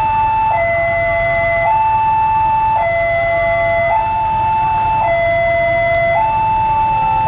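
Railway level-crossing warning alarm sounding a steady two-tone high-low alternation, each note about a second long, warning that a train is approaching. A low rumble runs underneath.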